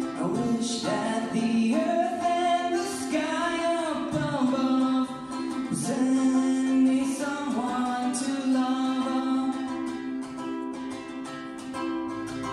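A song sung with guitar accompaniment: a voice carrying the melody over a steady, sustained low note.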